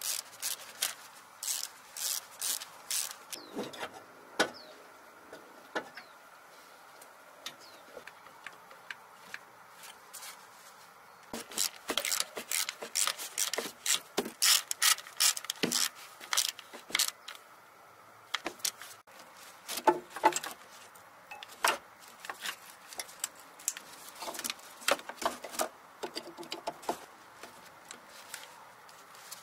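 Irregular clicking and clattering of hoses, connectors and small metal and plastic engine-bay parts being handled and pushed into place, in bunches of rapid clicks with short pauses between them.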